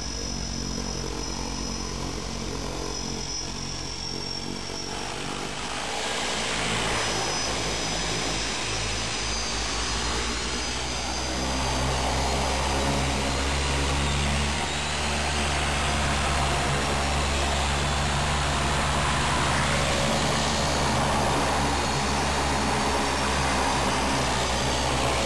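De Havilland Canada DHC-6 Twin Otter's twin PT6A turboprop engines heard from inside the cockpit, running steadily at taxi power with a low propeller hum and a high turbine whine. The sound grows louder about six seconds in and again about twelve seconds in.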